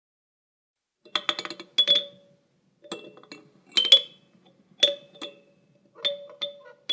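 A child's toy chime clinking and clanking after about a second of silence. It comes in short clusters of light taps, each leaving a brief ringing note, a low one and a high one, roughly once a second.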